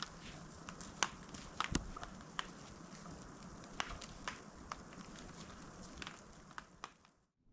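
Wood fire crackling, with irregular sharp pops over a steady low hiss, cutting off abruptly about seven seconds in.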